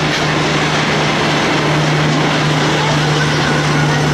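Heritage passenger carriages rolling past at speed: a steady, loud rush of wheel and rail noise with a constant low hum, and faint regular clicking of wheels over rail joints.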